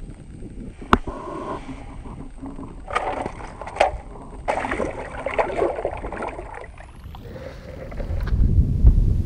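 Handling sounds and water splashing in an ice-fishing hole as a black crappie is let go back down it, in a few uneven bursts. Wind rumbles on the microphone near the end.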